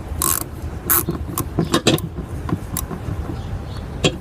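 Metal hand tools (a small ratchet, extension and socket) clinking and tapping against engine parts under a car's hood: irregular clicks and knocks with a couple of brief scrapes, over a steady low hum.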